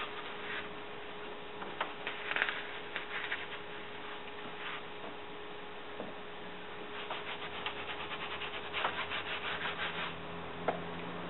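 Cloth bending pads being handled and rubbed against a wooden workbench: scattered rustling rubs, then a quick run of rubbing strokes from about seven to ten seconds in, over a steady faint hum.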